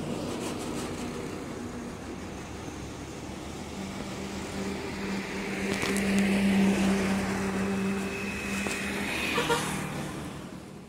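A motor vehicle passing by, its steady engine hum growing louder to a peak about six seconds in and then fading away.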